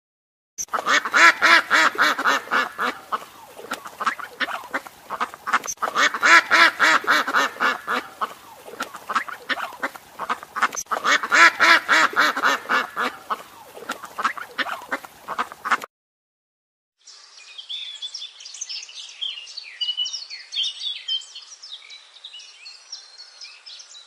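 Greylag geese honking and cackling in dense, rapid gabbling runs, loudest in three swells about five seconds apart. The geese cut off abruptly, and after a second of silence a Eurasian siskin twitters in high, quick chirps over a faint hiss.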